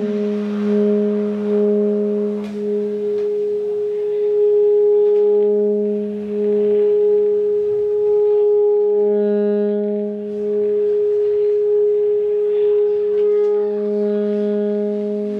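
Sustained droning tones from an installation's instruments responding to coloured squares: one steady tone runs on unbroken while a lower tone swells in and fades out several times and fainter higher tones come and go. Near the end more tones join in.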